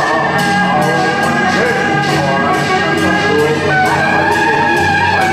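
Loud temple-procession music: a shrill wind melody over steady drum and cymbal beats, about two beats a second.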